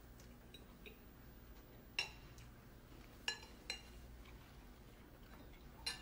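Cutlery clinking against plates during a quiet meal: four sharp, briefly ringing clinks, the first about two seconds in, two close together past the middle, and one near the end, over a low, hushed room tone.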